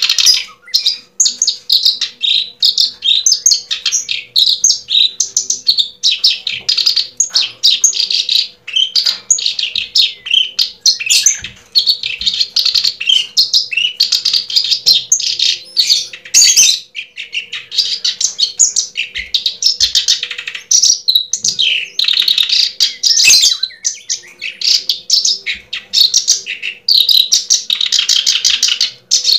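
Birds chirping and twittering almost without pause in dense, rapid runs of high chirps, over a faint steady hum.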